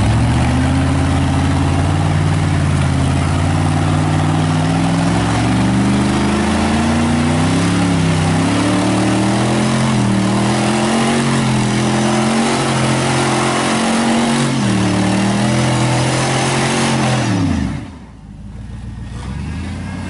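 Full-size Chevy 4x4 truck engine held at high revs while climbing a rock ledge, the pitch wavering up and down under load, with a constant rushing noise over it. Near the end the revs fall away sharply and the sound drops.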